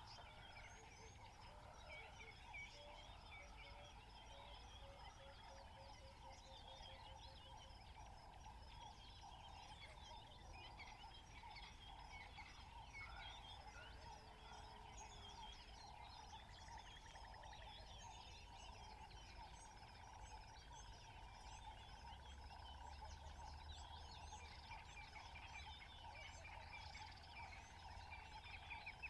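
Faint natural ambience of many small birds chirping and calling over a steady hum of calls, with a short run of quick, evenly spaced lower notes about five seconds in.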